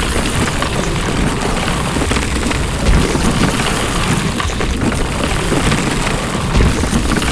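Loud continuous rumbling and crashing noise, like heavy rock and earth falling, with two deep booms standing out, about three and a half seconds apart.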